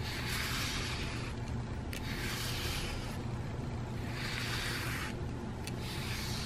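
PetZoom grooming brush being drawn through a cat's thick fur: a rasping swish with each stroke, four strokes about two seconds apart.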